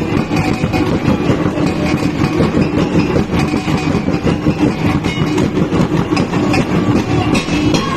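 A row of bossed gongs struck rapidly with sticks in a steady, dense rhythm of quick ringing beats.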